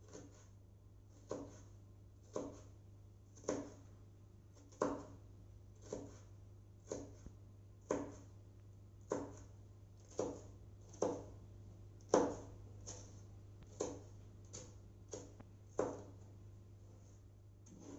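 Chef's knife chopping red bell pepper on a wooden cutting board, the blade knocking against the board about once a second.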